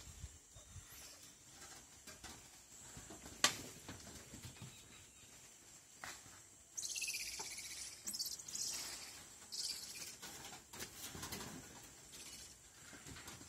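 Tropical forest ambience: a steady high insect hum, with a sharp snap a few seconds in and three bursts of loud, high chirring around the middle. Faint rustles of leaves and branches come as squirrel monkeys clamber through the foliage.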